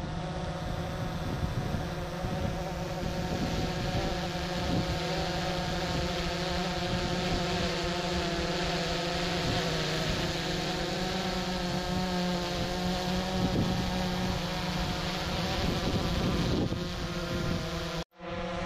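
DJI Phantom 3 Advanced quadcopter hovering close by, its four propellers making a steady, insect-like buzzing hum. The sound cuts out briefly near the end.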